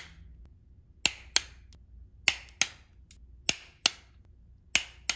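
Click-type torque wrench, set to 110 inch-pounds, clicking as each bolt reaches its set torque. The sharp clicks come in pairs about a third of a second apart, four pairs at roughly one a second.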